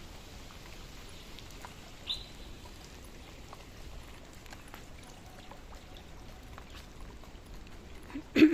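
Quiet outdoor background noise, with a short high chirp about two seconds in and a brief voice sound near the end.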